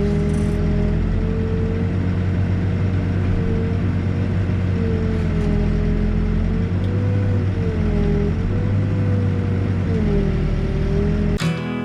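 Backhoe's diesel engine running steadily under load, with a whine that rises and falls as the hydraulics work. It cuts off abruptly near the end to strummed acoustic guitar music.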